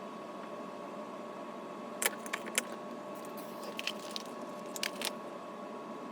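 Small metal parts or tools clinking and clicking in two short clusters, about two seconds in and again around four to five seconds in, over a steady hum.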